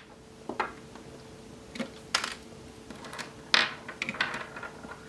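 Small metal objects clicking and clacking against a hard surface, a handful of separate clicks spaced irregularly: loose lead buckshot pellets and cartridges being handled and set down.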